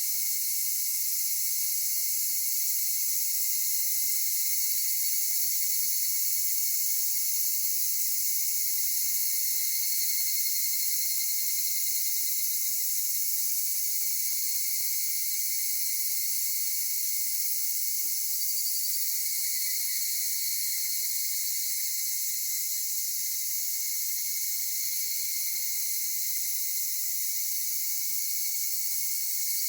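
Dense, unbroken chorus of singing insects, high-pitched and steady, with fainter calls rising and falling in pitch now and then above it.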